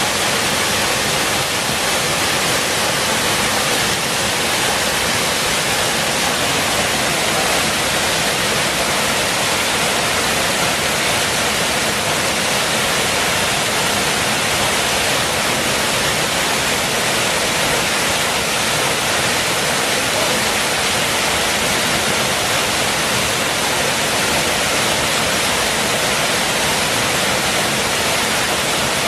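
Waterfall pouring steadily: a loud, even rush of falling water.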